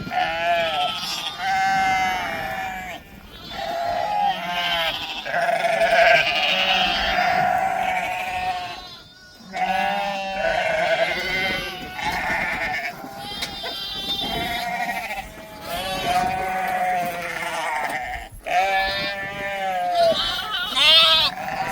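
Many goats bleating at once, their wavering calls overlapping almost without pause, with a brief lull about nine seconds in.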